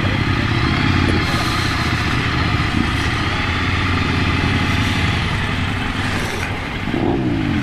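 Ducati Monster 797's air-cooled L-twin engine running under way, with wind rush over the microphone. Near the end the engine note falls.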